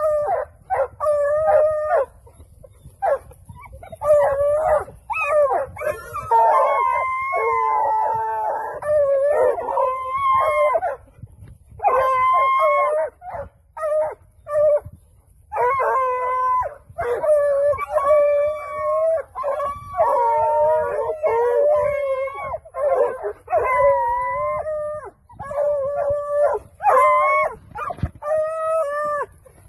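Several hunting dogs baying and howling over an armadillo they are holding down. The calls are loud and come one after another, often overlapping, with only brief gaps.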